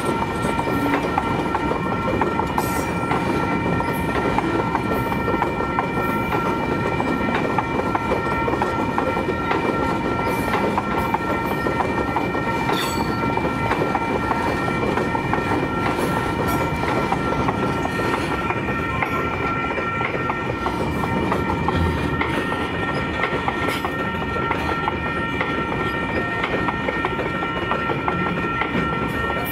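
Freight train of loaded container flat wagons rolling past, wheels clicking over the rail joints. A level-crossing warning bell rings on steadily over it.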